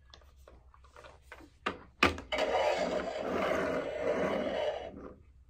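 Cars 3 Track Talkers DJ toy car pressed down with a sharp click about two seconds in, then its small speaker plays a noisy rushing sound effect for about two and a half seconds before cutting off.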